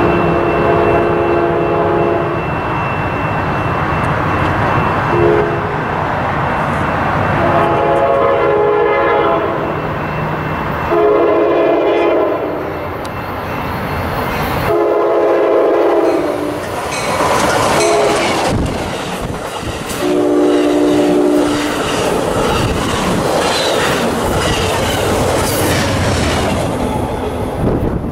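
Amtrak passenger train with a GE P42DC diesel locomotive approaching and sounding its horn in about six blasts, mostly long with one short one, over a steady rumble. About two-thirds of the way in, the train passes close by: a loud rushing rumble with wheels clattering over the rail joints.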